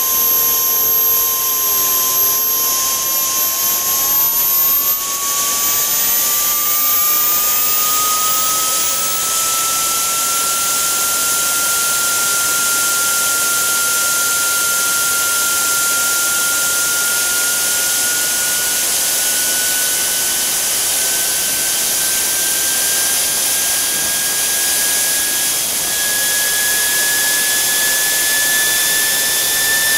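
JetJoe 1400 model jet turbine engine running, a loud high whine over a rushing hiss. It spools up as the throttle is advanced from about a quarter to three-quarters, its pitch climbing from about four seconds in and rising slowly again toward the end, from about 62,000 to over 100,000 rpm.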